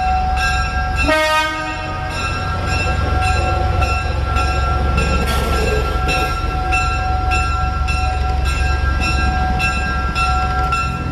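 Train horn sounding a long, held chord over the rumble of a locomotive, with a bell ringing at about two strikes a second.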